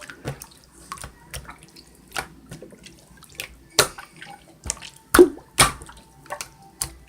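Water splashing and dripping: a string of irregular splashes and drops, the loudest about four and five and a half seconds in.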